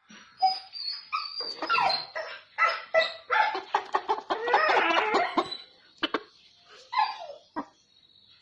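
A dog barking and whining in a rapid run of calls for about five seconds, followed by a few single barks.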